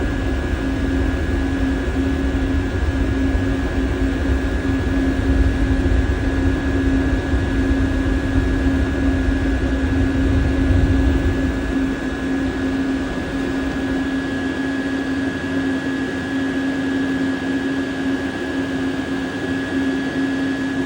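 Diesel heater running with a steady fan hum and a steady tone. A low rumble underneath eases off about twelve seconds in.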